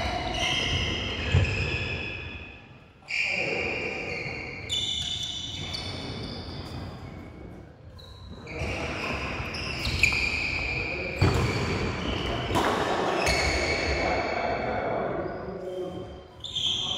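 Doubles badminton play on an indoor court: repeated sharp racquet hits and high shoe squeaks on the court floor, every second or two, in a large hall.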